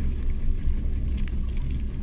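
Steady low rumble of a fishing boat's engine running, with a faint steady hum above it.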